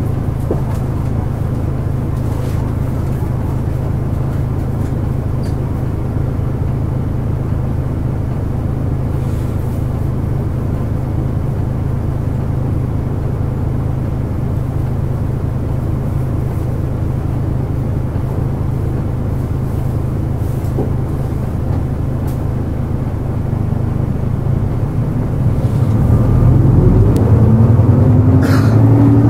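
Diesel engine of a Nissan Diesel KL-JP252NAN city bus, heard from inside the cabin, running steadily at an even pitch. Near the end it revs up, rising in pitch and getting louder as the bus accelerates.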